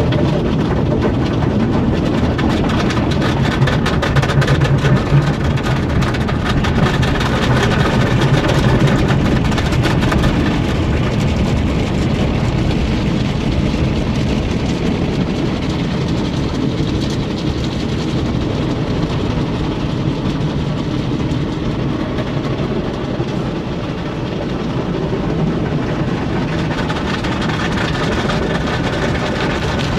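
Automatic tunnel car wash heard from inside a minivan's cabin: water and foam spraying and wash equipment working over the van, a steady, loud wash with no pauses.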